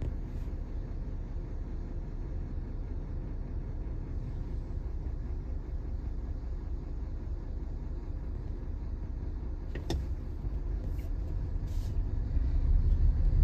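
Car driving on a city road: steady low engine and tyre rumble, with a short click about ten seconds in, growing louder near the end.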